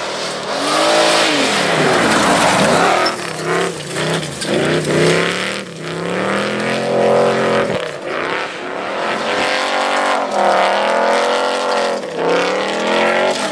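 A 1949 Ford custom's engine revving hard, its pitch rising and falling several times as the car powerslides on loose gravel, over a steady hiss of spinning tyres and spraying gravel.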